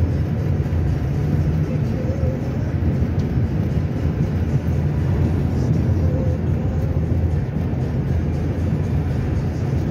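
Steady low road-and-engine rumble heard from inside a car cruising at speed.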